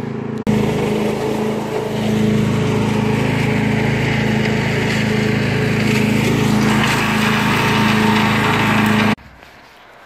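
Engine-driven wood chipper/shredder running steadily, a constant engine note under a wide rushing noise. It starts abruptly just after the beginning and cuts off suddenly near the end.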